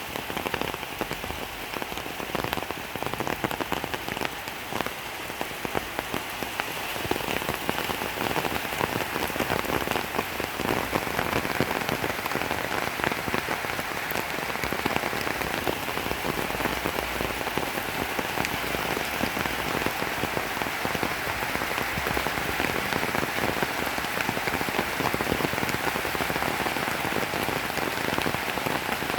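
Steady rain falling on a surface, dense with individual drop hits, growing a little heavier about seven seconds in.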